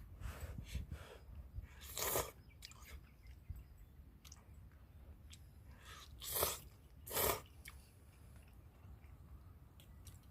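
Three short crunching noises, the first about two seconds in and the last two close together near seven seconds, with small clicks between them.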